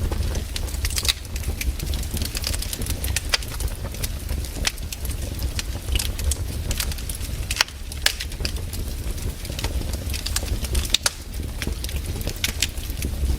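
Wood fire crackling, with irregular sharp pops and snaps of burning firewood over a steady low rumble.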